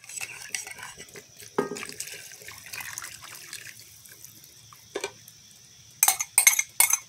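Dark soy-sauce mixture pouring from a glass measuring jug into a cast-iron pot of broth, with a single knock about a second and a half in. From about six seconds in, a metal spoon clinks rapidly against the glass jug, about four clinks a second.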